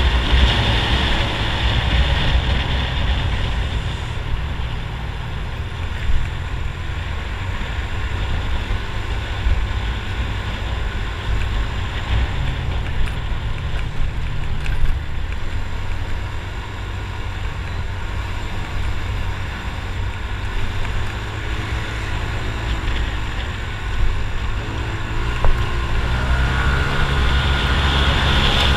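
Wind rushing over the microphone of a moving 150 cc scooter, its engine running steadily underneath; the engine note wavers near the end.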